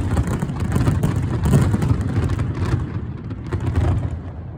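Fireworks going off in a rapid barrage: a dense run of booms and crackles that fades and drops away near the end.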